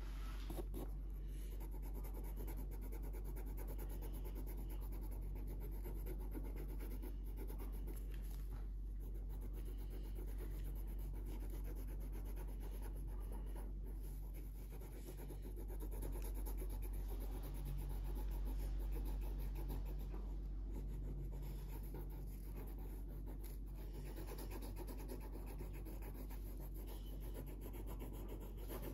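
Felt-tip marker scratching and rubbing on paper in rapid back-and-forth strokes as an area is coloured in, over a steady low hum.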